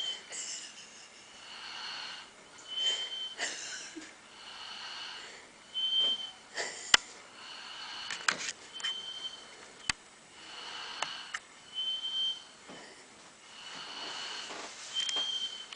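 Sleeper snoring in slow breaths about every three seconds, each with a short high whistle at its peak. A few sharp clicks fall between breaths, the loudest about seven seconds in.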